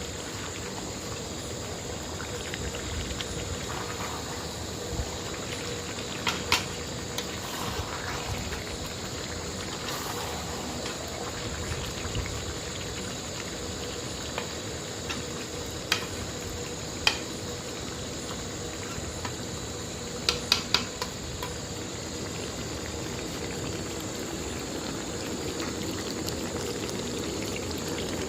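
Chicken curry bubbling and sizzling as it cooks in a pot, with a few sharp clicks or knocks now and then, including a quick run of three about two-thirds through.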